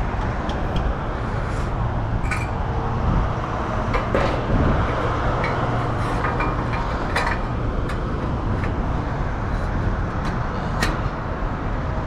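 Scattered light knocks and clinks of sheet-metal brackets and panels of a rooftop AC unit being handled, over a steady low rumble.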